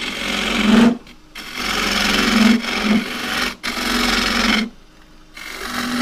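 A 1-inch round bowl scraper cutting the inside of a spinning green casuarina bowl on a lathe, a rasping hiss of wet wood being shaved. It comes in three passes, the longest in the middle, broken by two short pauses as the tool is lifted off.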